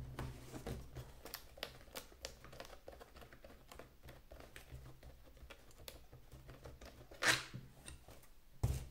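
Handling noise from unpacking: small clicks and crinkles of a cardboard box and the hard plastic waterproof housing of an action camera as it is pulled out of the box, with a louder scraping rustle about seven seconds in.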